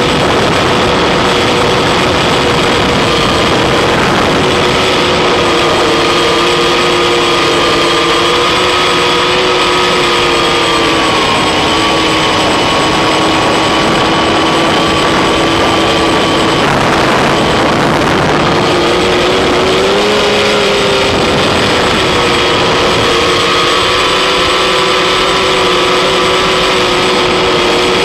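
Octocopter's eight electric motors and propellers running steadily in flight, heard from on board the craft. Several steady tones over a constant hiss drift slightly in pitch with throttle, dipping about eleven seconds in and rising briefly around twenty seconds in, with a thin high whine throughout.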